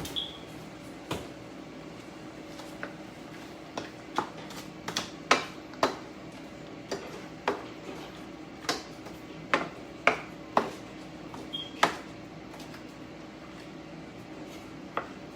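A utensil knocking and scraping against a skillet while stirring turkey meat browning in it: sharp, irregular knocks about once a second. Under them runs the steady hum of an air fryer.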